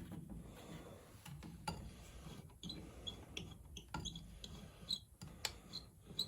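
Faint, irregular light clicks and taps of metal parts as a bench chain grinder's vise is set to a 25-degree angle.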